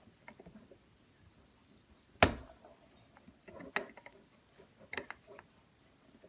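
Scattered clicks and knocks of small hard plastic parts being handled and set down, with one loud sharp knock about two seconds in and lighter clicks later.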